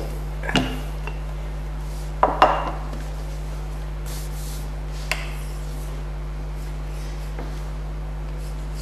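Wooden rolling pin knocking against a stainless-steel work table a few times in the first three seconds, with a single light click about five seconds in, over a steady low hum.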